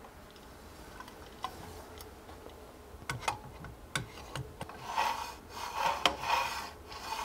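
Metal template holder knocking and clicking as it is fitted onto the PantoRouter's template holder frame, then sliding up and down along the frame in three strokes near the end.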